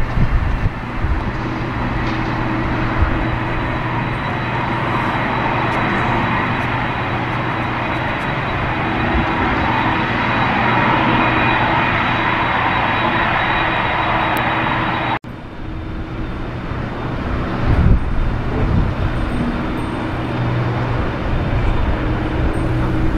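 Airbus A310-300 jet engines running with a steady roar and a high, steady whine as the airliner rolls along the runway, with gusty wind rumbling on the microphone. The sound cuts out for an instant about fifteen seconds in, then resumes a little quieter.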